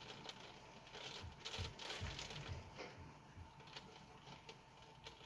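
Light rain pattering in irregular drops and ticks, busiest a second or two in.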